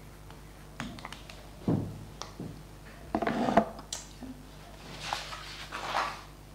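Marker tapping and rubbing on a glass lightboard, with a few louder knocks and rustles of movement.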